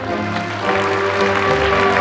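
A choir with a backing band holding a sustained chord. Audience applause breaks in under a second in and grows over it.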